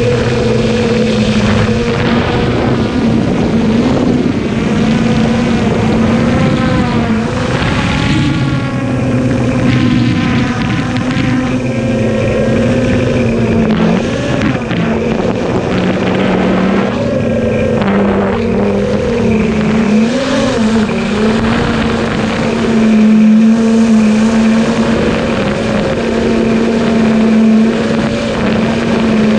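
Traxxas Aton quadcopter's electric motors and propellers running in flight, a steady hum whose pitch wavers up and down as the drone manoeuvres, picked up close by the GoPro mounted on the drone.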